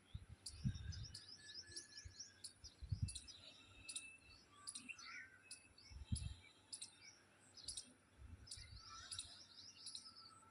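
Faint birdsong: many short, high chirps and twitters, with a few low muffled thumps.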